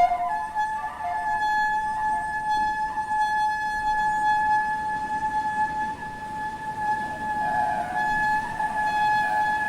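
Shofar (ram's-horn trumpet) blown in one long, steady held note, starting sharply right at the beginning and sustained at an even pitch.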